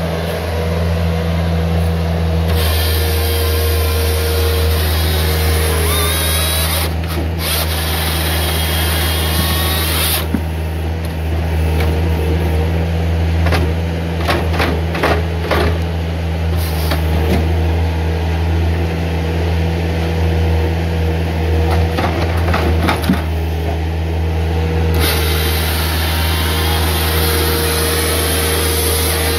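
Bobcat S300 skid steer's diesel engine running steadily, with the grapple saw's hydraulic chain saw cutting through logs in two long spells, from a few seconds in to about ten seconds and again near the end. A quick run of knocks comes around the middle.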